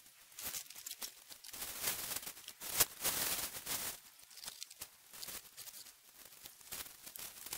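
Rustling and crinkling of nylon tent fabric and gear bags being handled and packed, in a run of irregular scuffs, loudest about three seconds in with one sharp click.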